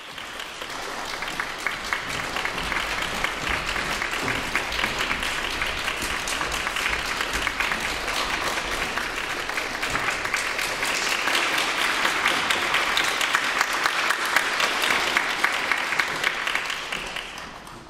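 Audience applauding steadily as the performers walk onto the stage, fading out near the end.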